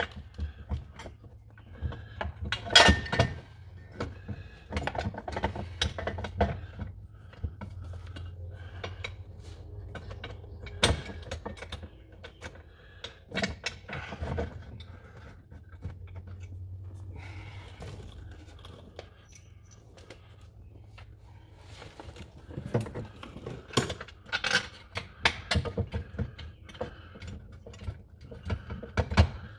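Scattered metallic clinks and knocks of bolts and hand tools against a jet boat's jet pump housing as its mounting bolts are lined up and threaded in by hand.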